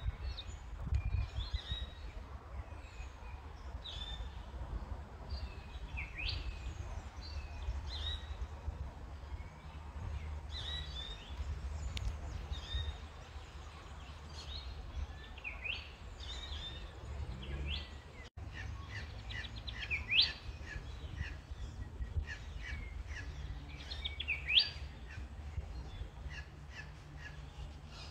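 Wild birds calling and chirping, short rising whistles and chirps coming every second or so, with two louder rising calls in the second half. A steady low rumble lies underneath.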